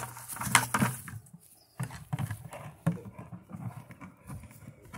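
A pit bull's teeth and jaws knocking and scraping on an overturned plastic 5-gallon bucket as he tries to bite around it, with the dog's own breathing. Sharp clicks in the first second, then a string of irregular duller knocks and thuds after a short pause.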